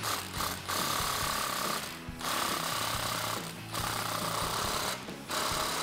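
Cordless impact wrench hammering as it tightens an exhaust band clamp: a few short taps, then four runs of about a second each with brief pauses between them.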